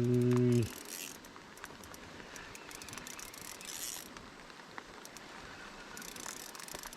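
A small spinning fishing reel being wound in, its gears whirring and clicking in short spells a few seconds apart. A man hums briefly at the start.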